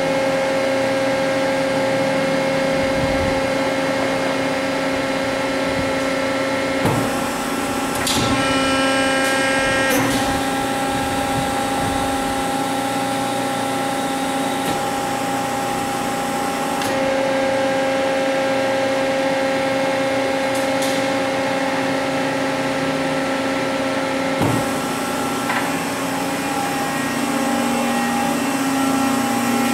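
Hydraulic pump and motor of a 100-ton Accurpress press brake running with a steady hum. There are a few clicks and a change in tone about 7 to 10 seconds in, another tone change about 17 seconds in, and a click about 24 seconds in.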